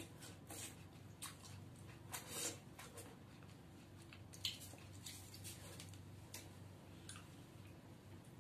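A person chewing and biting cooked drumstick (moringa) pods by hand: faint, irregular mouth clicks and smacks, a few louder ones about two and a half and four and a half seconds in.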